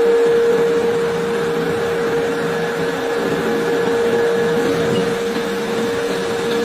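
Steady machine drone with a constant high whine and a noisy hum beneath it, unchanging, with no blows or impacts.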